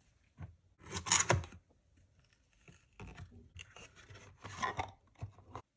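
Paperboard perfume box being opened by hand, its flap lifted and the bottle slid out against the cardboard insert: a series of rubbing and scraping sounds. The loudest comes about a second in, and another run starts at about three seconds and stops abruptly near the end.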